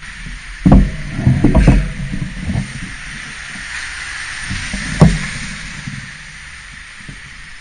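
Street traffic passing through an intersection, heard as a hiss that builds and fades a few seconds in, picked up by a bicycle-mounted action camera. Several low thumps hit the microphone in the first two seconds and once sharply about five seconds in.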